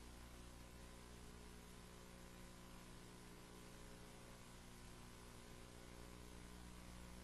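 Near silence: a faint steady electrical hum with low hiss.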